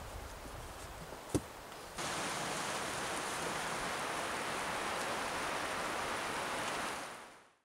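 Steady rushing outdoor noise that starts abruptly about two seconds in and fades out at the end. Before it there is quieter ambience with a single sharp knock about a second in.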